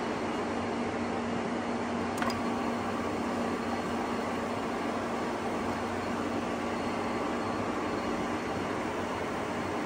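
Startrite Mercury II bench drill running: a steady mechanical hum and hiss. A single click comes about two seconds in, and a faint high whine follows it.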